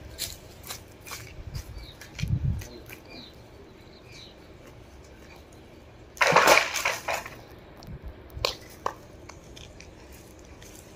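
Leafy branch being hauled by rope up the inside of a concrete well: scattered scrapes and rustles, a dull thump about two seconds in, and a loud rush of rustling leaves lasting about a second, about six seconds in.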